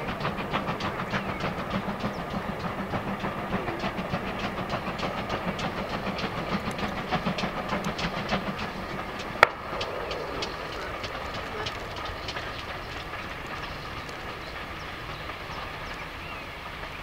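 Steam train running by, with quick rhythmic beats over a steady hiss and rumble for about nine seconds. A single sharp crack comes about nine seconds in, and then the sound carries on steadier and a little quieter.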